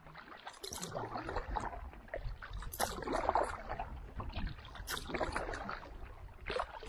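A canoe paddled across calm lake water: paddle strokes splash and drip about every two seconds, with softer water swirling between them.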